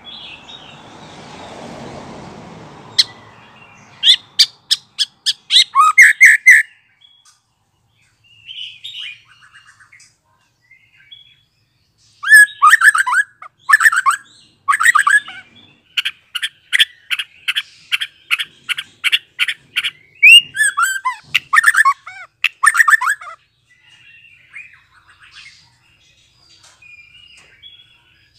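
A young white-rumped shama, just out of its spotted juvenile plumage, sings in loud bursts. A run of quick sharp notes comes first. After a pause a longer phrase follows, with a note repeated steadily about three times a second, then rich whistled notes and softer chirps.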